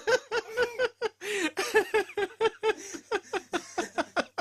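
A person laughing hard in quick, high-pitched repeated bursts, a sustained fit of giggling.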